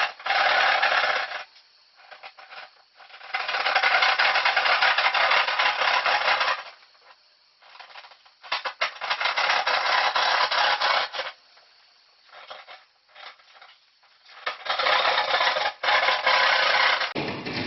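Saw cutting through drywall in quick back-and-forth strokes, in four spells of two to three seconds with short pauses between.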